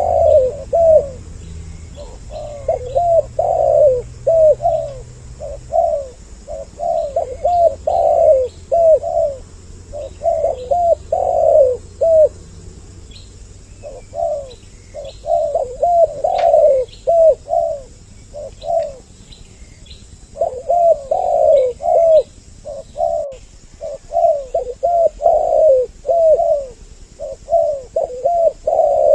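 Spotted doves cooing over and over in phrases of several rounded coos, two birds calling over each other, with short pauses between bouts. Faint high chirps of small birds sound behind them.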